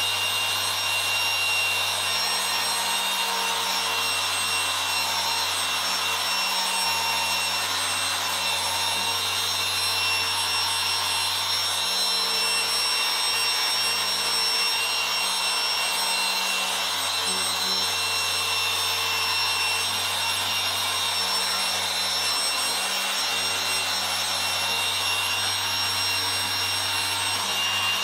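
Dual-action machine polisher running steadily with a steady motor whine and hum, its white foam finishing pad buffing an alloy intake plenum during the final finishing-polish stage.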